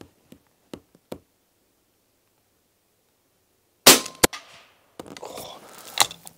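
Fully suppressed De Lisle carbine firing a subsonic .45 ACP round: a short, muted report, then, under half a second later, a sharp crack of the bullet striking the target board 75 yards downrange. Metallic clatter of the bolt being worked follows near the end.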